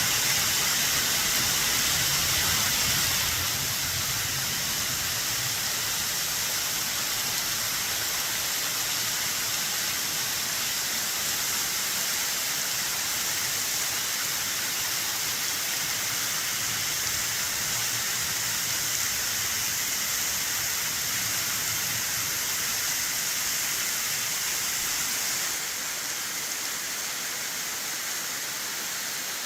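Waterfall at high spring run-off, water cascading off a cliff in a steady, hissing rush. It drops a little in loudness about three seconds in and again near the end.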